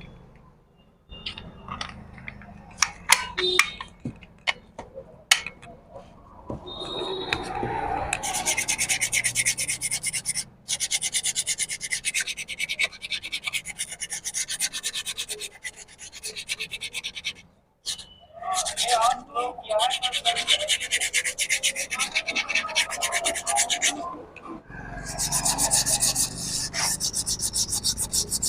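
Small metal brake parts clicking and tapping as they are handled, then long runs of fast rasping, rubbing strokes on a motorcycle drum-brake assembly, broken by short pauses.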